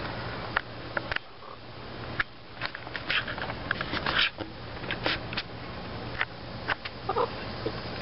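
Hens at close range in a dirt run: scattered sharp taps and scuffs, with a brief soft hen cluck a little after seven seconds in.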